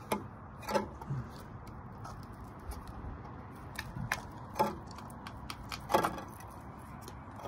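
A few light metallic clicks and knocks, spread out a second or more apart, as a cut-out piece of rusty sheet steel from a van's sill is handled and pulled free.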